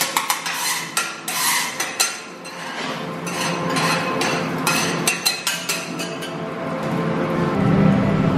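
Metal spatulas clacking and scraping on a steel teppanyaki griddle as fried rice and egg are chopped and turned. A quick run of sharp clacks at the start, then sparser taps and scrapes.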